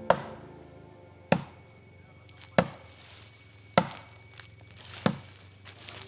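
Five heavy axe blows into a durian tree trunk, evenly spaced about one every second and a quarter, each a sharp crack.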